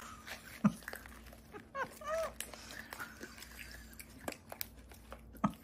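Chewing and crunching of freeze-dried Lemonheads candy: scattered crisp crunches, with a brief hum of a voice about two seconds in.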